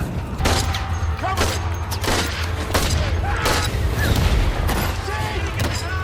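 Film battle-scene soundtrack: gunshots at irregular intervals, about one a second, over a steady low rumble, with shouting voices in the background.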